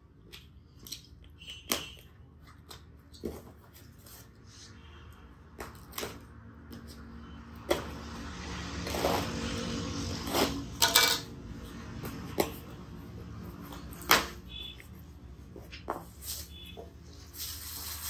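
A cardboard parcel being cut open with a box cutter and handled on a glass counter: scattered sharp clicks and taps, with a longer stretch of scraping and tearing in the middle. Plastic wrapping rustles near the end.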